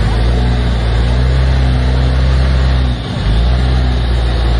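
Jeep Wrangler JL Rubicon engine running steadily at low revs as the Jeep crawls over a rock ledge. The engine note drops out briefly about three seconds in, then picks up again.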